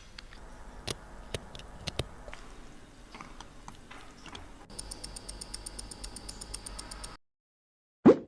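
Small sharp clicks of tools on a Mido Baroncelli watch, then a mechanical watch movement ticking fast and evenly, about eight ticks a second, after its service for water damage. The ticking stops abruptly, and a short loud sound comes just before the end.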